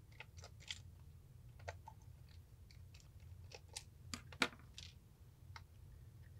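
Light, scattered plastic clicks and taps of a precision screwdriver and the ANENG mini digital multimeter's plastic case being handled as the back screws come out and the case is pried open. The sharpest click comes about four and a half seconds in.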